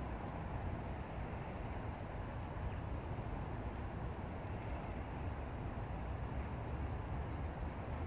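Steady rushing of a shallow river current over a riffle, with a low rumble underneath. Two faint high chirps come through, about three seconds in and again near seven seconds.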